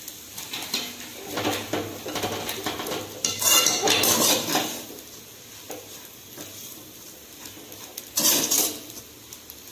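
Metal spatula stirring ragi vermicelli and grated coconut in a metal pan, scraping and clattering against the pan in irregular strokes. The loudest scraping comes about three and a half seconds in, with another short loud scrape about eight seconds in.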